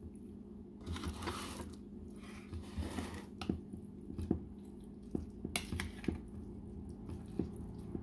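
Mayonnaise-dressed pasta salad being stirred in a ceramic bowl with a metal utensil: soft wet squishing with irregular light clicks and scrapes of metal on the bowl.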